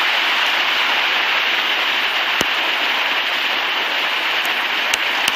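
The Wallowa River rushing over a shallow cobble bed: a steady hiss of running water, with a faint click about halfway through.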